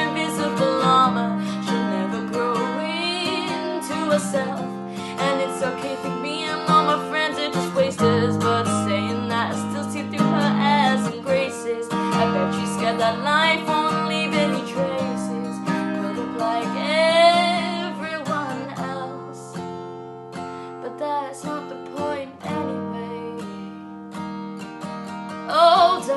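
Song with strummed acoustic guitar chords and a singing voice, the words not clear.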